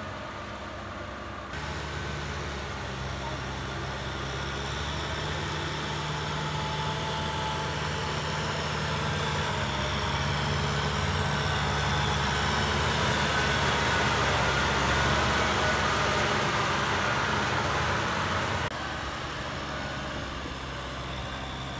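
Kubota M6040SU tractor's four-cylinder diesel engine running steadily under load as it pulls a rotary tiller through a flooded paddy, with mud and water churning and splashing. The sound grows louder toward the middle as the tractor comes closer. It jumps abruptly twice, about a second and a half in and near the end.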